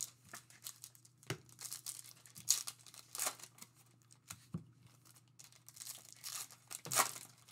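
Trading card packaging being torn open and crinkled by hand: a series of short rips and rustles, the loudest about three seconds in and again near the end.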